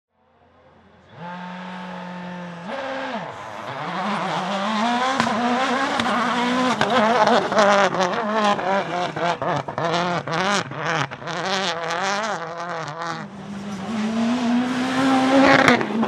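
Citroën DS3 WRC rally car's turbocharged 1.6-litre four-cylinder engine at full race pace. It grows louder over the first few seconds, then the revs rise and fall sharply again and again through gear changes, with sharp pops and cracks in between.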